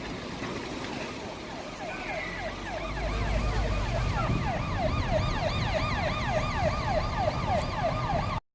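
Emergency vehicle siren in a fast yelp, its pitch sweeping down about three times a second, growing clearer after a few seconds over low traffic rumble, then cutting off abruptly near the end.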